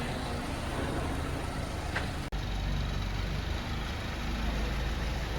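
Car engine running at low speed as the car is turned around, a steady low rumble with a momentary break about two seconds in.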